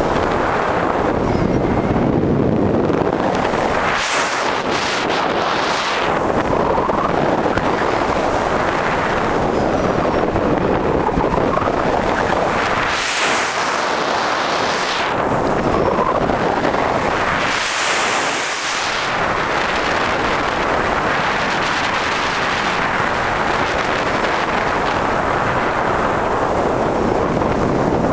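Wind rushing hard over the camera microphone of a pole-mounted camera on a tandem paraglider in flight. Three times the rush turns into a higher hiss as the glider swings through wingovers and picks up airspeed.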